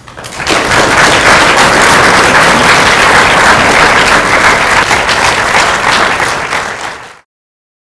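Audience applauding: dense clapping that builds up within the first half second, holds steady, and is cut off abruptly about a second before the end, leaving silence.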